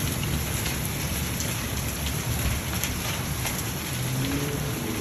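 Heavy rain and wind of a severe thunderstorm, with scattered sharp ticks of drops striking nearby surfaces. A low steady hum comes in near the end.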